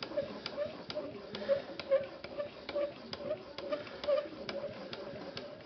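Edge Pro Apex sharpening stone stroking along the edge of a ZDP-189 steel knife blade in even back-and-forth passes, a short tick at each stroke about twice a second over a light scrape, as the stone removes metal.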